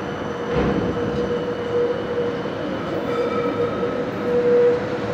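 Transtech Artic low-floor tram running past on street track, with a steady whine that swells and fades over the rolling noise and a short knock about half a second in.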